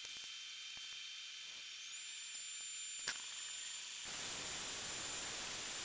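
CNC router spindle running with a high whine that steps up in pitch about two seconds in, while a long 1/8-inch endmill bores a hole into plywood. A short click comes a little after three seconds, and from about four seconds a louder, fuller hiss joins in.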